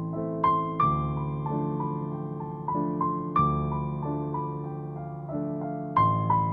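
Gentle instrumental piano music: a slow melody of single notes over sustained chords, with fresh chords struck about half a second in, halfway through and near the end.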